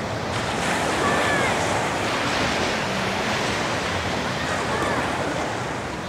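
Small surf waves washing up on a sandy beach in a steady rush, with wind on the microphone.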